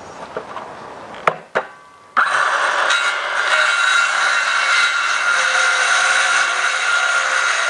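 Ryobi circular saw starting about two seconds in, after a couple of clicks, then running steadily with a high whine as it cuts into a thin wooden board.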